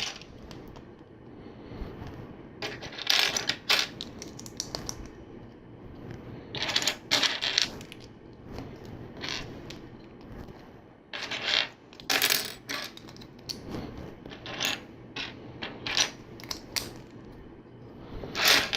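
Plastic LEGO pieces clattering and clicking in irregular bursts as they are handled and slid across the table.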